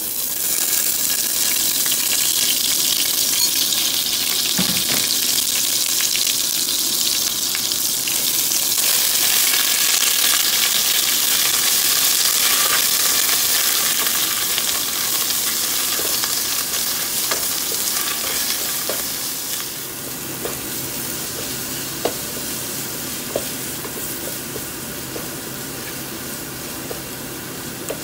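Curry paste sizzling as it fries in oil in a pot, stirred with a wooden spoon. The sizzle eases a little about two-thirds of the way through, and a few light knocks of the spoon against the pot come through later on.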